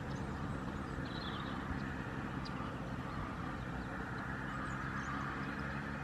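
Steady low motor hum with a hiss over it, and a faint, brief high twitter of a small bird about a second in.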